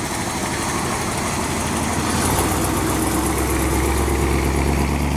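An engine running steadily at idle, its low hum growing stronger about two seconds in.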